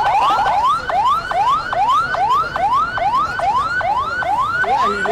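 Electronic siren in yelp mode: a loud, fast, repeating rising whoop, about three sweeps a second, each climbing in pitch and then dropping back sharply.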